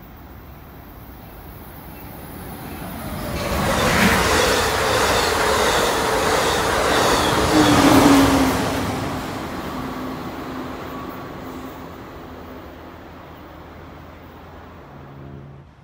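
Amtrak Pacific Surfliner passenger train passing at speed: it grows loud over the first few seconds, is loudest as it goes by about four to eight seconds in, and then fades away. As it passes, a hum drops in pitch.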